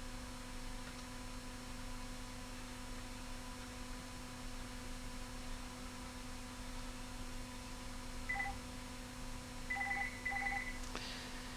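Short electronic beeps from a multimeter's continuity tester as the probes touch connected points: one beep about eight seconds in, then a few quick beeps near the end, over a steady electrical hum.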